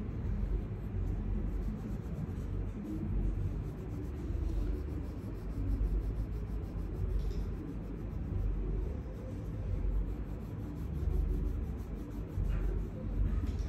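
Red colouring pencil scribbling back and forth on paper, heard as a low, uneven rubbing that rises and falls with the strokes.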